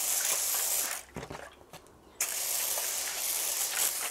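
Water spray bottle with a pump head misting water onto folded kitchen tissue in two long hissing sprays. The first spray ends about a second in, and the second starts just after two seconds.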